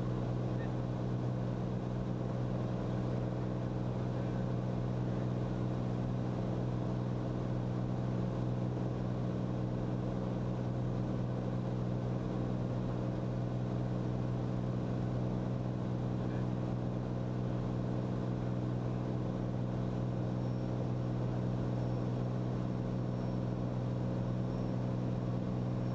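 Steady cabin drone of a Cirrus SR22T in flight, its turbocharged Continental six-cylinder engine and propeller running at an even, unchanging pitch, heard from inside the cockpit.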